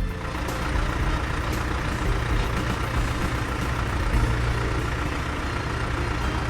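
Combine harvester's engine running with a steady low rumble and a noisy mechanical roar over it.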